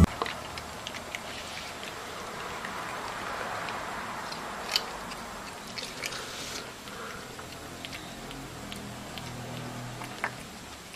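Low indoor room noise with a few faint, scattered clicks and taps, the sharpest about five seconds in and again near ten seconds.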